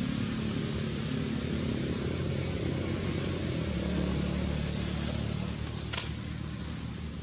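A motor engine running steadily with a low hum, and a brief sharp tick about six seconds in.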